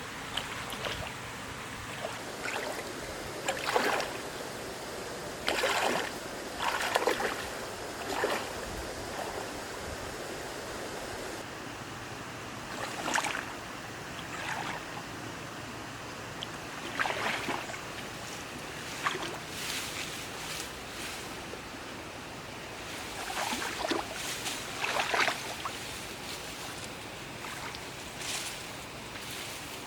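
Water sloshing and splashing in short, irregular bursts over a steady hiss.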